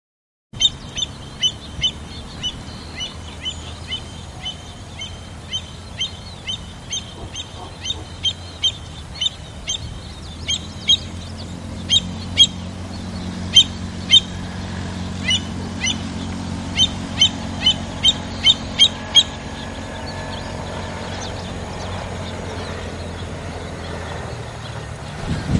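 American avocets calling: a long series of short, sharp, high-pitched calls, about two a second at first, then in irregular clusters, stopping a few seconds before the end. A steady low rumble sits underneath.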